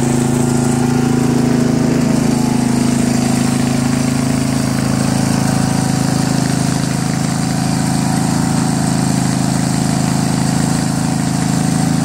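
Riding lawn mower's engine running steadily.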